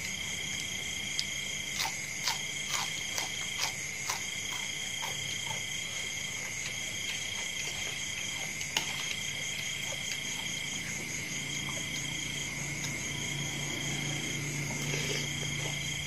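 Steady chorus of calling frogs and insects: one high tone held throughout, with a second, higher tone switching on and off every second or two. A handful of sharp clicks of a metal fork and spoon against a ceramic bowl come in the first few seconds and once more near the middle.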